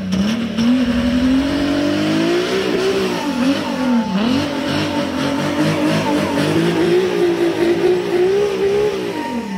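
Diesel-swapped Toyota Supra's engine revving hard during a burnout, with the rear tyres spinning and smoking. The revs climb over the first few seconds, dip and waver briefly, then rise again and hold high until they drop at the very end.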